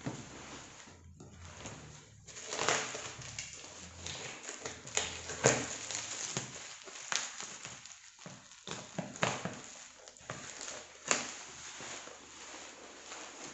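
Cardboard box and packaging being handled and opened: irregular rustling and scraping with several sharp knocks, the loudest about five seconds in and again near the end.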